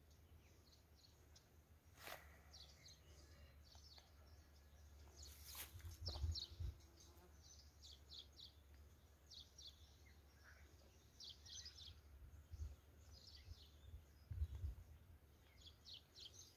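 Faint outdoor ambience: small birds chirping in short, high calls scattered throughout, over a low wind rumble on the microphone that swells a couple of times, with two sharp clicks about two and five and a half seconds in.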